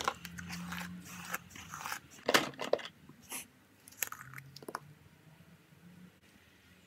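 Clicks and rustling as makeup products are handled and applied, busiest in the first three seconds, then fading to faint, scattered clicks.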